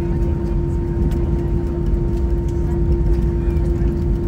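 Steady cabin drone inside an Airbus A320 airliner: low rumble of engines and airflow with a constant hum over it.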